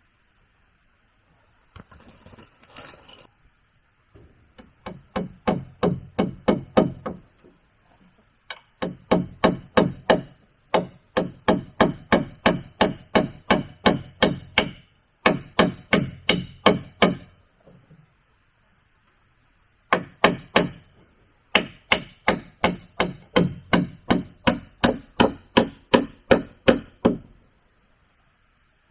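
Rapid blows on wood, about four to five strikes a second in runs of several seconds separated by short pauses, typical of hammering while building timber stairs.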